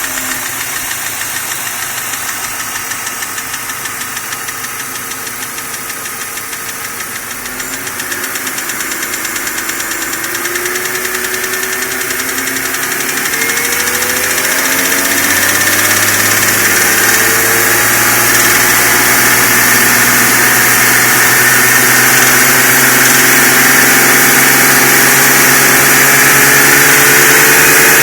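BMW M52 inline-six engine running hot, idling with a regular tappet-like ticking, then slowly revved up from about eight seconds in and held at a steady higher speed. The ticking persists despite new hydraulic lifters and lifter guides. It appears only once the engine is above about 85 °C and goes with low hot oil pressure, about 2.25 bar at 5000 rpm.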